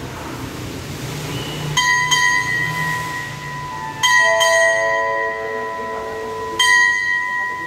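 A brass station bell is struck by hand five times, each stroke ringing on with a clear, slowly fading tone. Two quick strokes come about two seconds in, two more about four seconds in, and a single one near the end. This is a Thai railway station's hand bell, rung by the station staff to announce a train.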